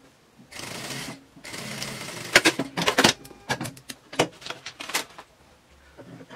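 Industrial sewing machine stitching in a steady run of about two seconds, sewing bias binding onto fabric. It is followed by a string of sharp clicks and taps.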